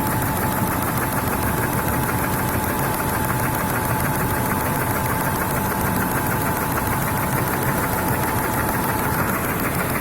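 Stäubli TOPMATIC warp-tying machine running under test after an electronics repair: a steady, fast mechanical clatter with a steady whine that stops about nine seconds in.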